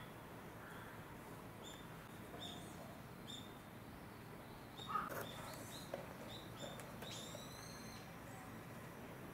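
Small birds chirping: short high notes repeating about every half second, with a longer, fuller call about seven seconds in. A brief knock about five seconds in is the loudest moment.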